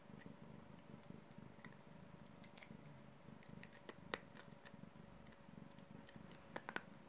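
A cat chewing sports-supplement tablets from a person's palm: faint, scattered crunching clicks, with one sharper click about four seconds in.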